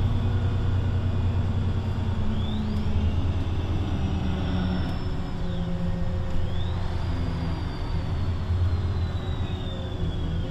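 VDL Citea LLE 120 city bus with a Voith automatic gearbox running, its engine a steady low drone. A high whine rises sharply about two and a half seconds in, eases off and drops away, then rises again after six seconds and slowly falls.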